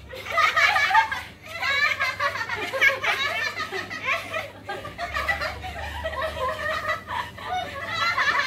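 Several women laughing and chatting at once, their voices overlapping.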